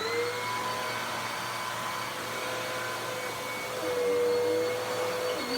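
Dirt Devil PowerMax Pet vacuum (model UD70167) running with a steady motor whine, having just spun up to full speed at switch-on. It gets slightly louder about four seconds in.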